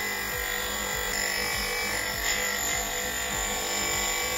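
Bench grinder running, its spinning wheel held against a wooden axe handle, with a steady motor whine, over background music with a regular beat.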